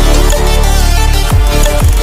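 Electronic background music with a heavy bass and deep drum hits that drop sharply in pitch.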